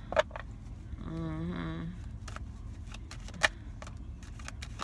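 Low steady rumble inside a car, with a short hummed 'mm' from a woman's closed mouth about a second in. Two sharp clicks, one right at the start and one past the middle, are the loudest sounds, with a few faint ticks between.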